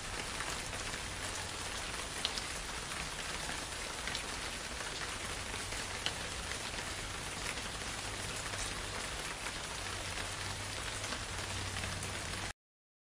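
Recorded rain sound playing: a steady hiss of rainfall with scattered sharper drop ticks. It cuts off abruptly near the end.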